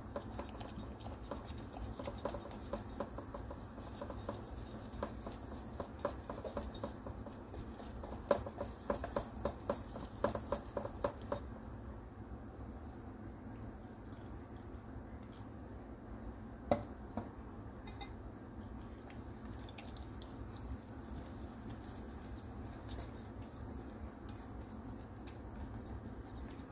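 Wire whisk stirring a dry flour mix in a glass bowl: rapid clicking and ticking of metal wires against the glass, busiest about eight to eleven seconds in. Later, quieter whisking of wet batter with only scattered clicks and one sharp clink about two-thirds of the way through.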